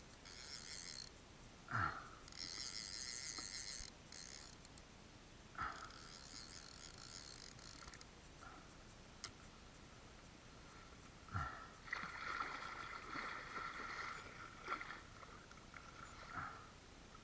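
Multiplier fishing reel ratcheting in three bursts of a second or two each while a hooked tope is played, with a few sharp knocks between them and a longer scraping, rustling stretch later on.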